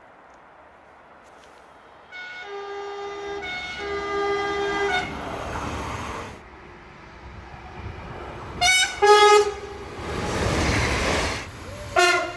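Train horn sounding a chord of several tones in two held blasts a couple of seconds in, then short sharp blasts later on, the last near the end. The noise of a train running past fills the stretches between the blasts.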